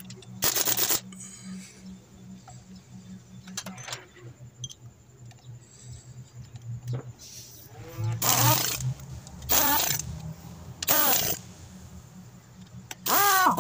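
Impact wrench run in five short bursts, each rising and falling in pitch, spinning down and tightening the bolts on a gearbox casing. A steady low hum runs underneath.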